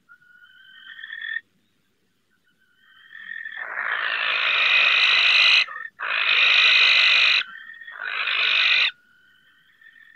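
Barn owls screeching: three long, harsh screams, the first swelling in loudness, starting about three and a half, six and eight seconds in. Fainter, thinner calls come before and after them.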